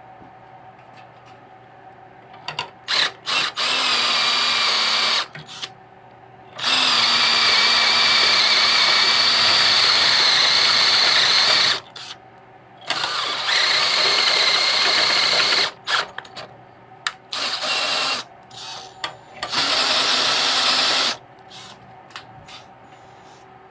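Power drill boring into a garden tractor's steel frame, run in bursts of a steady whine. A few quick trigger pulls are followed by several runs of a few seconds each, the longest about five seconds, with short pauses between them.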